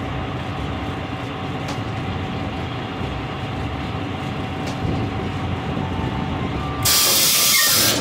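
Tailgate latch air cylinder and its solenoid valve firing on a dump truck: a loud rush of compressed air hissing for about a second near the end, as the cylinder strokes out to work the latch, over the steady low rumble of the truck.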